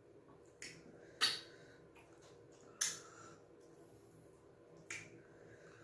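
Mouth sounds of eating fufu and light soup: four short, sharp eating noises a second or two apart, the loudest a little over a second in.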